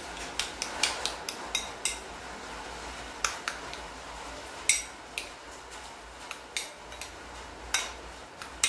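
Metal spoon stirring and mashing grated carrot in a glass bowl, clinking and scraping against the glass in irregular taps, a few of them sharper.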